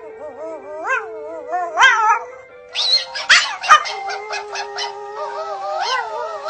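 A dog howling with wavering, sliding pitch over music with long held notes, breaking into a few short yips about halfway through.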